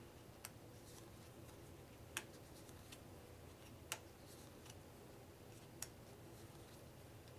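Playing cards being laid down one at a time, a sharp click about every two seconds, four in all, with fainter card ticks between.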